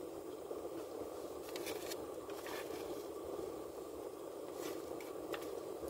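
Eating sounds: a utensil scraping and clicking in a food container and chewing, a few short scrapes spread through, over a steady hiss in the car's cabin.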